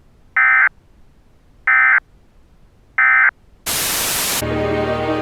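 Emergency Alert System end-of-message data tones: three short, identical electronic bursts about 1.3 seconds apart, the SAME 'NNNN' code that marks the end of an alert. A loud burst of static follows, and then music begins.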